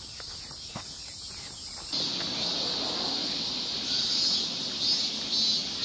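Faint soft steps in grass for about two seconds, then, after an abrupt change, outdoor ambience carried by a high, shrill insect chorus that swells and fades in pulses.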